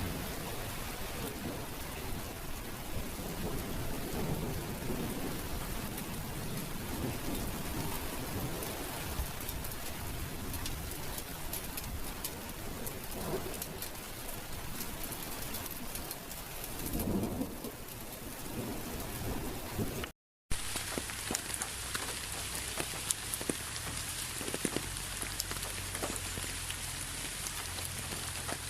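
Steady heavy rain falling, with low rumbles swelling in the first part. About two-thirds of the way through, the sound cuts out for a moment and resumes as rain with many distinct drips pattering.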